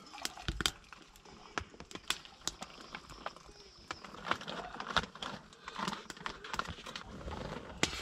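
Quiet camp mealtime handling: irregular small clicks, taps and rustles from a metal mug, kettle and food pouch and spoon being handled, with a small wood stove burning close by.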